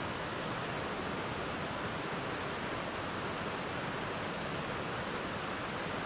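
Water rushing over rapids and a waterfall: a steady, even rush that does not change.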